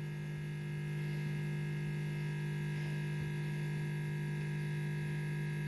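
Steady electrical mains hum: a low drone with several fixed higher tones above it.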